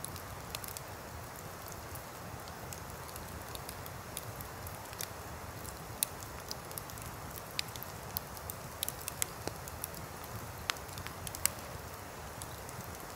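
Wood campfire crackling, with sharp pops and snaps scattered through, most frequent in the second half, over the steady rush of a river.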